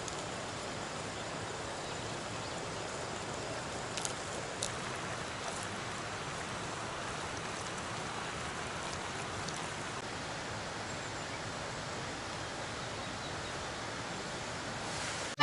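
Steady rush of flowing water, a stream or river running, with a couple of faint clicks about four seconds in.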